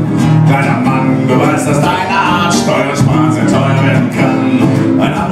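Solo acoustic guitar strummed live through a PA in an instrumental break of a song, steady and full.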